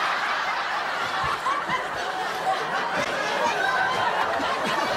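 Sitcom studio audience laughing together, a steady wash of many people's laughter.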